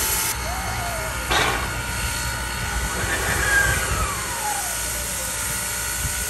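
Steam locomotive standing with steam hissing steadily. A short sharp sound comes about a second in, and a falling tone around the middle.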